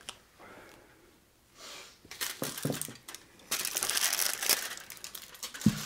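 Aluminium foil crinkling and rustling as a foil-wrapped glass is handled and lifted, starting about two seconds in, with a sharper knock near the end.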